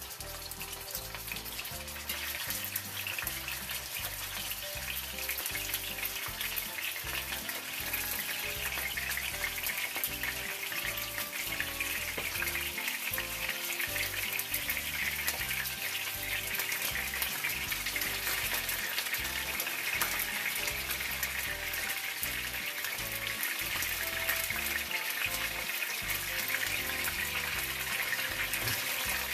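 Tuna steaks frying in hot oil in a pan: a steady sizzle with dense crackling and spitting, louder from about two seconds in.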